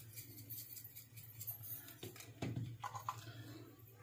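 Faint kitchen room tone with a steady low hum, a few light ticks and a soft knock about two and a half seconds in.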